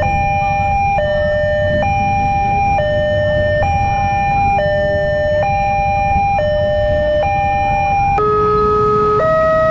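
Railway level-crossing warning alarm: an electronic two-tone signal alternating high and low about once a second while the barrier is down. About eight seconds in it cuts to another crossing's alarm, a different pair of tones alternating at a similar pace.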